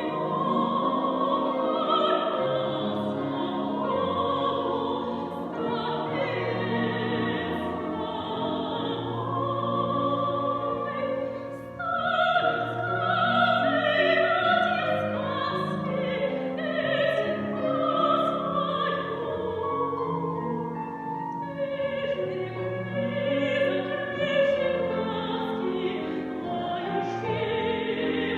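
Choir singing a classical piece in an operatic style, with a female soloist's voice among the sustained choral notes.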